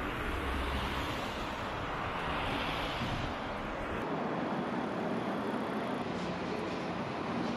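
City street traffic noise: a passing vehicle swells about two to three seconds in over a steady wash of traffic, and the low rumble thins out about four seconds in.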